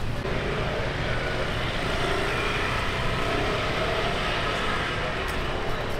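City street traffic: a steady rumble of passing motorbikes and cars.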